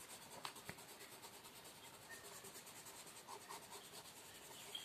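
Faint scratching of a colored pencil shading on a paper textbook page, with two light clicks about half a second in.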